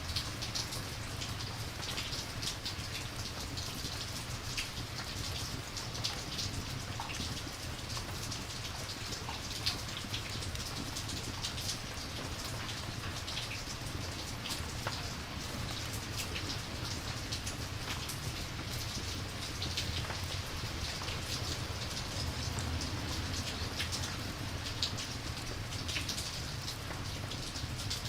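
Steady rain falling, with many scattered drop ticks over a constant hiss and a low rumble underneath.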